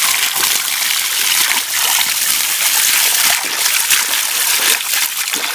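A stream of water pouring steadily from a spout and splashing onto wet ground, broken up by hands rinsing raw meat under the flow.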